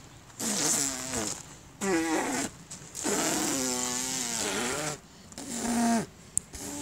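A boy's wordless vocal noises: four strained, breathy bursts, several falling in pitch, with the third held for about two seconds.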